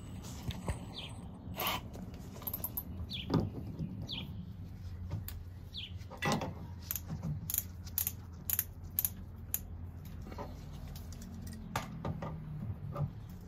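Outdoor ambience with scattered short bird chirps over a low steady hum, broken by a dozen or so light clicks and knocks of tools and fittings being handled, the strongest two about three and six seconds in.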